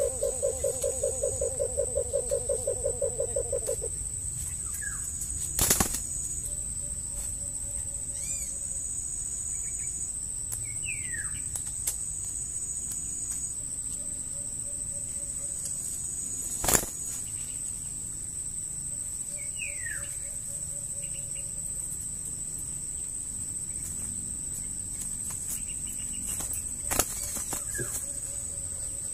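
A bird's rapid run of low pulsing notes, about seven a second, lasting the first few seconds. After that a steady high insect drone carries on, with a few short falling bird chirps and faint low notes. Two sharp knocks of handling come about six seconds in and again near the middle.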